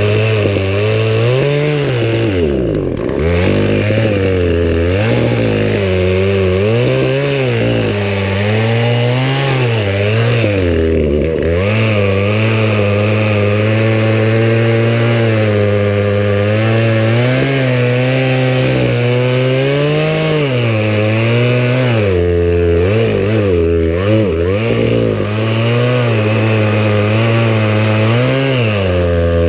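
Poulan Pro two-stroke chainsaw running hard while cutting wood, its engine pitch repeatedly sagging and climbing back as the chain bites into the limb and frees up.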